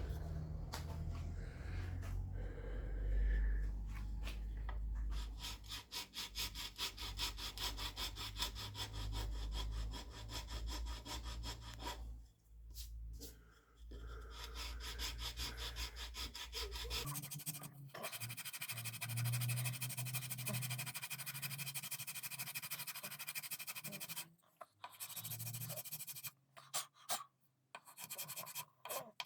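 Hand filing in quick, even back-and-forth strokes, several a second, with a pause partway and a low hum underneath during the first half.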